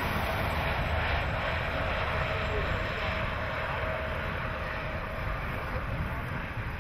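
Steady highway traffic noise from trucks and cars on the interstate: a low engine rumble with tyre hiss.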